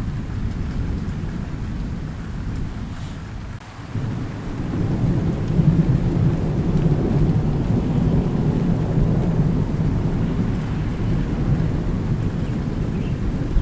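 Thunderstorm with steady rain and low rolling thunder. The rumble fades briefly, then a fresh peal of thunder rolls in about four seconds in and keeps rumbling.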